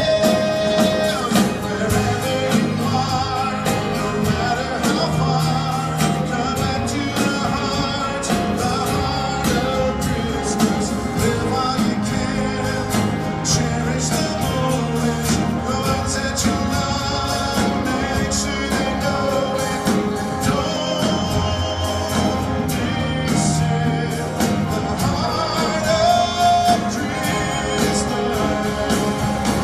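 A live band plays a Christmas pop ballad with drums and bass, with singing over it.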